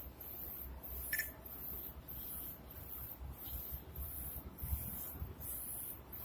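UV flatbed printer running a print job on a wood panel, its printhead carriage shuttling back and forth under a low hum. A high-pitched hiss breaks off about twice a second, with a brief sharper sound about a second in.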